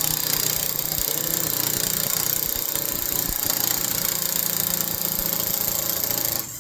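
Power wrench running steadily as it spins a 3/4-inch nut down onto a greased grade 8 wheel bolt of a mower's front wheel, with a bright hiss over a low hum; it stops suddenly near the end.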